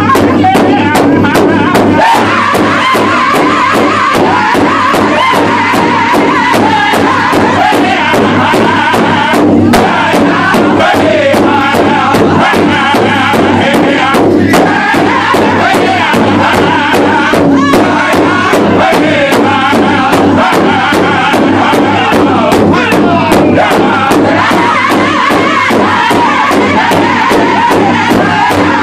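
Powwow drum group singing an intertribal song: a large powwow drum struck in unison by many drummers in a steady, fast beat, under loud group singing by many men's voices.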